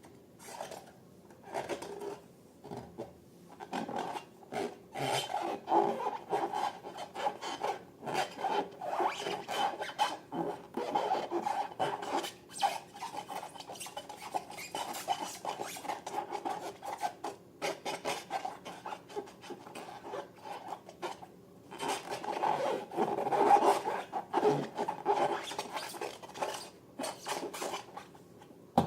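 Hands working slime and balloons, a steady irregular rubbing and scraping with many small crackles. It grows louder twice.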